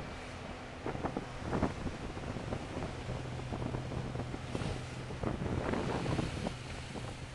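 Wind buffeting the microphone on the open deck of a car ferry, over the ferry engine's steady low hum and the wash of water. Stronger gusts come about a second in and again around five to six seconds.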